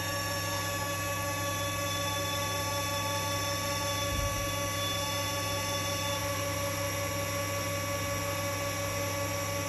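Hydraulic pump unit of a PPCT-60 C-frame hydraulic press running steadily, a hum with a high whine of several steady tones, as the ram advances slowly at about 13 mm per second in manual mode. A small knock comes about four seconds in.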